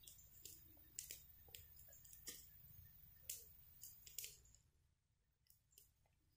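Faint, irregular clicks and crackles of a dog gnawing a cedar stick, its teeth cracking the wood; they thin out about four and a half seconds in.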